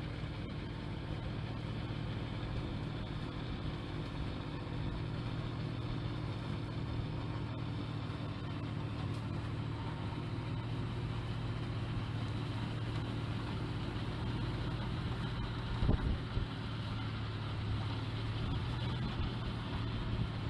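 Engine of a swather converted to a snowblower running steadily under load while its blower throws snow, with a couple of short thumps about three-quarters of the way through.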